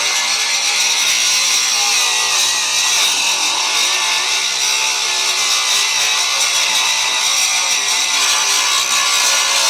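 Angle grinder with a coarse 36-grit abrasive running steadily against sheet steel, grinding the rusty floor area of an old Volkswagen bus clean.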